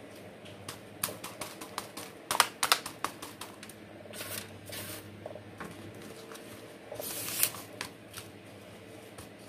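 Irregular clicks and rattles of bark chips knocking against a thin clear plastic cup and a plastic tray as an orchid is potted by hand. There are brief rustling sweeps of loose bark across the tray, the longest a little after the middle.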